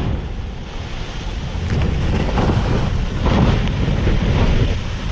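Wind buffeting the microphone over a steady rush of water, swelling and easing unevenly.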